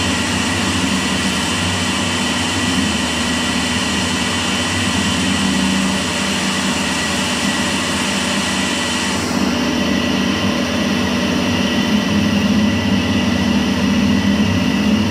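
Pressure washer running steadily, its pump motor humming under the hiss of the jet as it rinses wheel cleaner off an alloy wheel and tyre. The hiss changes slightly about nine seconds in.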